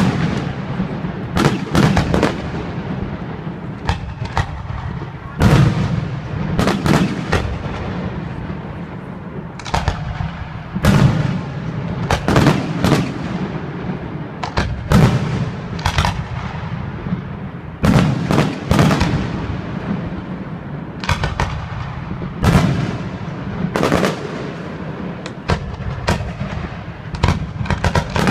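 Fireworks display: aerial shells bursting in a steady barrage, sharp bangs every second or two, often in quick clusters, over a continuous rumble and crackle.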